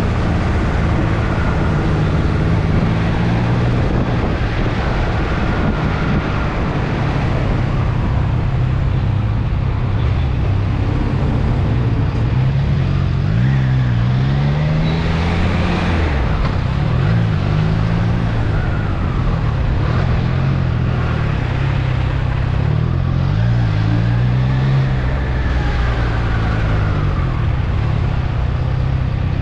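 Motorcycle engine running at road speed under steady wind rush, its pitch rising and falling a few times over the middle and latter part.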